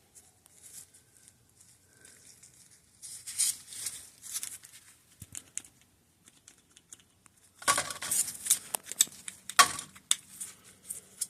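Brake parts and tools being handled on a workbench: scattered clicks and rustling, with a busier, louder spell of handling in the last few seconds.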